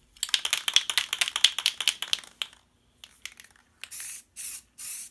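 Aerosol can of gold metallic spray paint: about two seconds of rapid rattling near the start, then several short bursts of spray hiss, quick passes laying on light coats.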